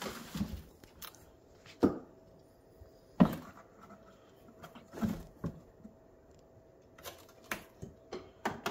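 A kitten's paws and claws knocking and scratching on a cardboard box as it climbs on it and moves about inside: scattered short knocks and scrapes, the loudest about two and three seconds in.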